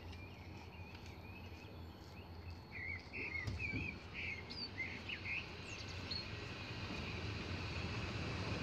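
Songbirds singing short warbling phrases from the trees beside the track, heard through an open train window over the low rumble of the moving train. The rumble grows louder toward the end.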